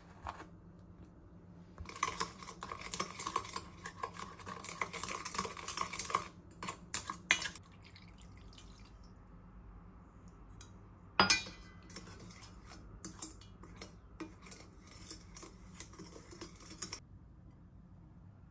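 Metal spoon stirring sauce in a stainless-steel bowl, scraping and clinking against the sides in a long spell. There is a sharp clink about halfway, then a second, softer spell of stirring.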